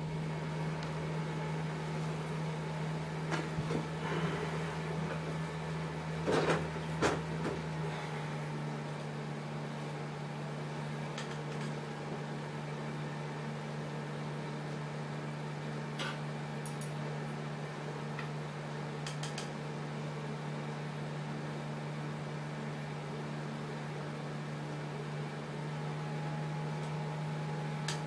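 Steady low hum of running aquarium equipment, with a few knocks about six and seven seconds in, the loudest sounds here, and a few faint clicks later.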